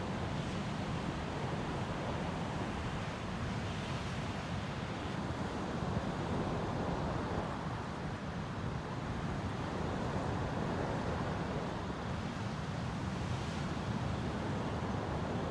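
Steady wash of ocean surf breaking on a beach, with wind on the microphone.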